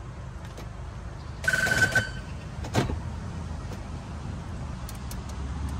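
Car keys handled at the ignition of a jump-started Rover Streetwise whose engine is not yet running: a short electronic beep about a second and a half in and a few sharp clicks, over a steady low hum.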